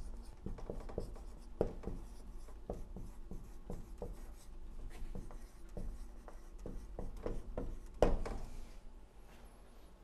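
Dry-erase marker writing on a whiteboard in many short scratchy strokes. There is a brief louder knock about eight seconds in, after which the writing stops.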